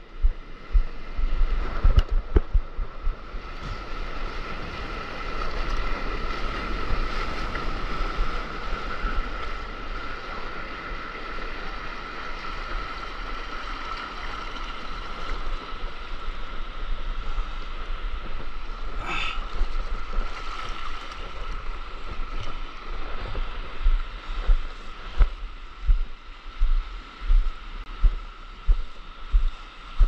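Whitewater from a broken wave washing steadily around a stand-up paddleboard as it rides in, with wind buffeting the microphone. From about two-thirds of the way through, a string of low thumps about once or twice a second.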